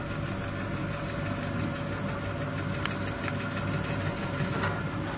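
Electric motor of a vegetable slicing and chopping machine running with a steady hum, with a few light clicks in the middle.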